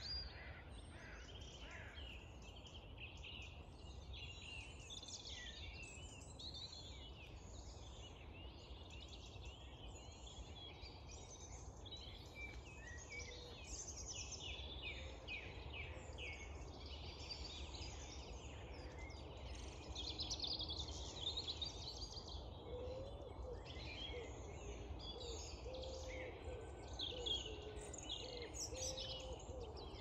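Dawn chorus: many songbirds singing at once, their phrases overlapping. A lower call repeats from about halfway through, over a faint low rumble.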